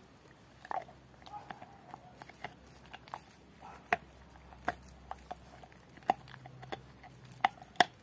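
Rottweiler gnawing a pork bone: irregular sharp crunches and clicks of teeth on bone, about one or two a second, the loudest near the end.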